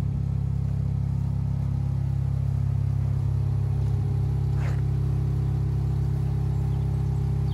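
Compact wheel loader's diesel engine idling steadily, with one brief short higher sound about four and a half seconds in.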